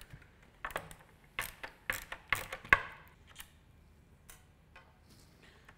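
Several light clicks and knocks of hand-tool work, the sharpest about two and a half seconds in: a Torx screwdriver backing screws out of the tripod leg's end cap, and the screwdriver laid down on the steel workbench.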